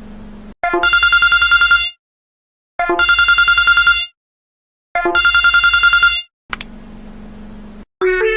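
Classic telephone ringtone: three rapid trilling rings about a second each, a second apart, with a low steady buzz before and after. Music starts again near the end.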